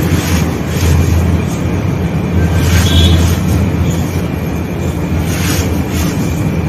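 Hands crunching and crumbling handfuls of damp white sand-cement mixture, a run of brief gritty crunches as the lumps are squeezed and let fall. A steady low rumble runs underneath.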